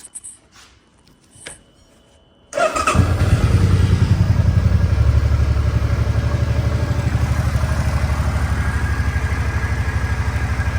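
Suzuki VZ800 M50 Boulevard's V-twin engine starting about two and a half seconds in, after a few faint clicks, then settling into a steady, evenly pulsing idle that runs nice and smooth.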